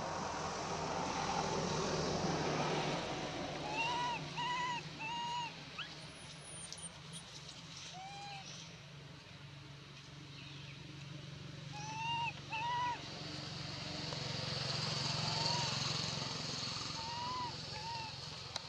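A baby macaque giving short, high coos that rise and fall, in twos and threes, over a steady outdoor hiss.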